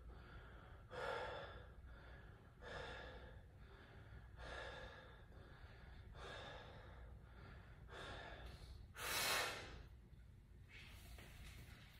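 Faint, heavy breathing of a man exerting himself through a set of barbell squats: about seven breaths, one every one and a half to two seconds, the loudest about nine seconds in.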